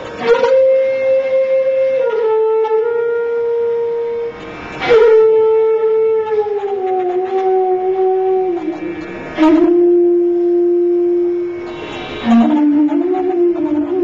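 Carnatic bamboo flute playing slow, long held notes that step downward in pitch. A new phrase starts about every four to five seconds, each with a short breathy onset.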